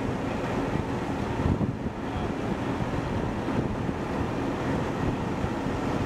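Ultra Heavy Lift Amphibious Connector (UHAC) tracked vehicle running steadily, its engine and tracks working as it crawls over a sandy bank, with wind buffeting the microphone.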